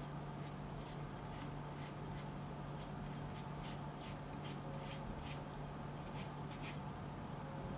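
A paintbrush dry-brushing gold paint onto a decoupaged baby-formula can in short strokes, about three a second, stopping near the end, over a steady low hum.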